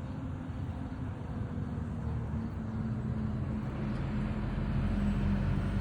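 Low engine rumble, growing steadily louder.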